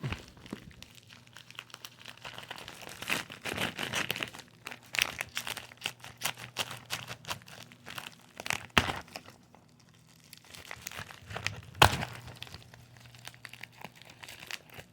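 Tough packaging being cut and torn open: steady crinkling and tearing with scattered crackles, broken by two sharp snaps, the louder one near the end.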